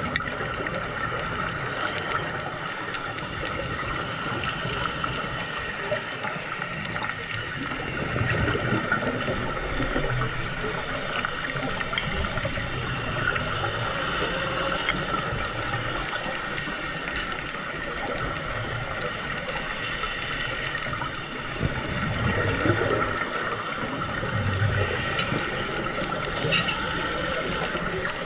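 Scuba diver breathing through a regulator underwater: a short hiss on each slow inhale, a few seconds apart, and gurgling bubbles on the exhales, over a steady underwater hum.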